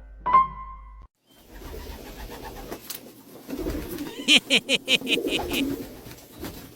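A bird cooing in low, curving calls, with a quick run of about eight sharp high pulses partway through.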